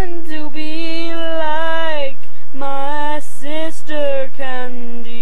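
A girl singing a made-up tune alone in a high voice: one long held phrase for about two seconds, then several shorter notes with pitch slides, ending on a long held note.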